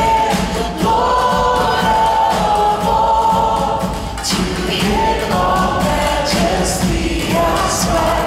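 Large choir singing a hymn in sustained phrases, backed by a band and orchestra with drum kit, guitars, piano and strings; drum hits run through the singing.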